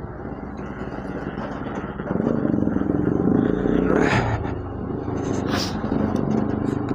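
Bajaj Pulsar RS200 single-cylinder engine running under way, picking up a little about two seconds in, with two brief hissing swishes a little after the middle.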